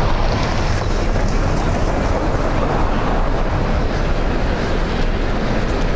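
Steady, loud city street ambience with a low rumble.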